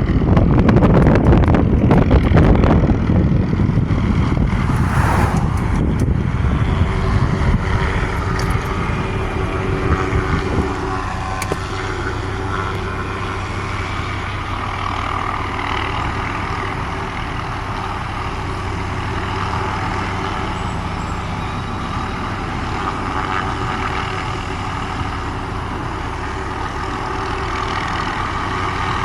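Hughes 500D helicopter's turbine and main rotor running. A loud rapid rotor beat in the first few seconds fades a little and settles into a steady droning hum.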